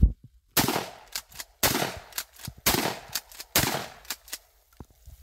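Winchester Model 1300 20-gauge pump-action shotgun fired several times in quick succession, roughly a second apart, each shot trailing off with echo, and the pump action clacking between shots. The loudest shot is at the very start.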